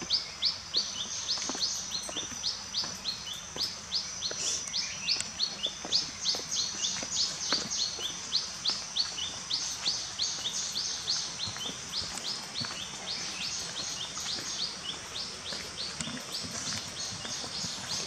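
Forest creature chirping: a long, even series of short high chirps, a few each second, over faint background hiss.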